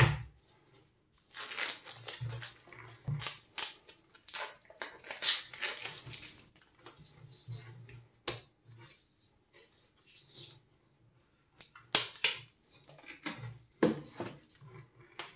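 Rustling and crinkling of tape and plastic sheet as a taped building-foam mold holding a cast concrete block is handled and peeled open, with foam scraping and a few sharp snaps.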